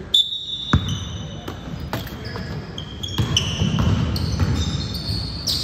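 A basketball bouncing on a hardwood gym court, with rubber-soled sneakers squeaking sharply over and over as players move. A loud squeak comes right at the start, and voices murmur in the background.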